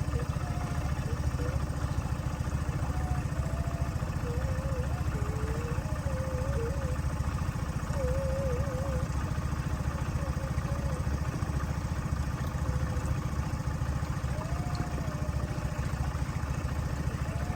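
Boat motor running at a steady cruising speed, an even low drone.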